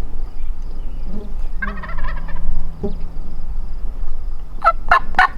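Wild turkey gobbler gobbling: a fainter call about two seconds in, then a rapid, rattling gobble near the end. A steady low rumble runs underneath.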